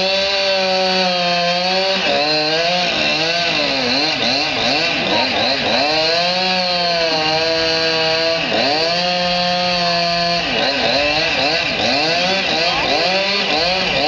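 Chainsaw cutting into a tree, its engine pitch repeatedly sagging under load and rising again as it revs back up.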